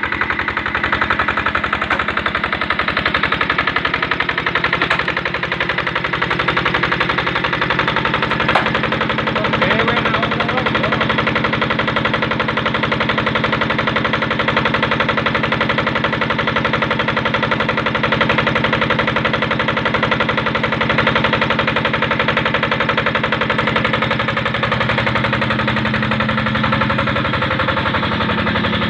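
Engine-driven brick-making machine (molen) running steadily under a constant load, with a rapid, even pulse and a steady hum.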